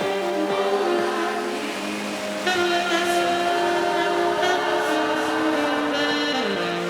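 Background music with long held notes and chords that shift in pitch every second or two.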